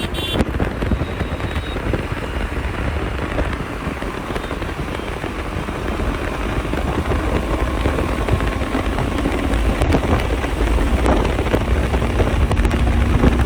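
BMW G 310 GS motorcycle riding at speed: heavy wind rush over the microphone mixed with engine and road noise, steady throughout.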